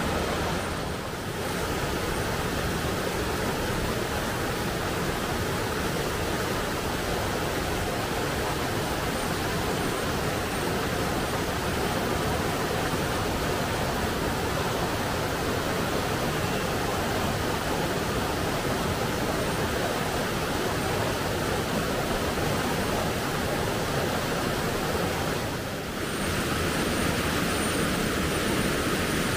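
Steady rushing of river water flowing over rocks, an even noise with no let-up, briefly dipping twice.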